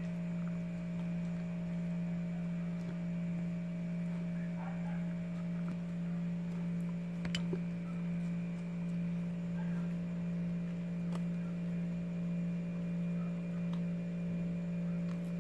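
A steady low hum with a slight wavering in loudness, with a single sharp click about seven seconds in and a fainter one a few seconds later.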